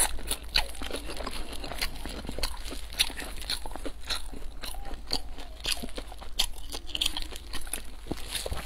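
Crisp fried pastry crust being bitten and chewed, a dense run of small sharp crunches and crackles with wet chewing between them.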